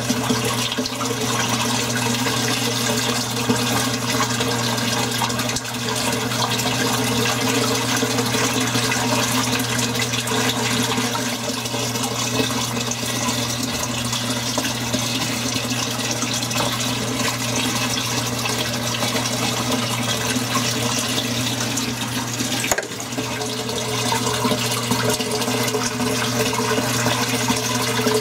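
Steady rush and bubbling of water in an aquarium from the running filter and air line, over a low steady pump hum. A brief dip breaks it about 23 seconds in.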